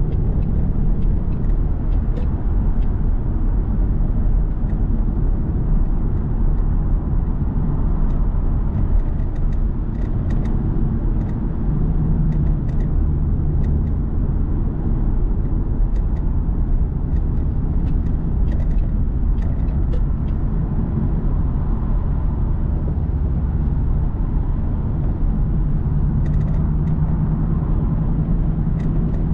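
Steady road and engine rumble of a car driving on a freeway, heard from inside the cabin, with a few small clicks here and there.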